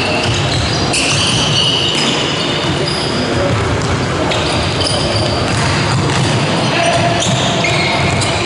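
Basketball game sounds in a large sports hall: basketball shoes squeaking in short high chirps on the wooden court, the ball thudding as it is dribbled, and voices calling out, all echoing in the hall.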